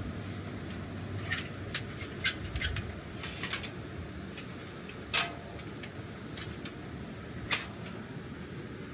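Scattered sharp clicks and knocks of camp gear being handled, the loudest about five seconds in, over a steady low rushing background.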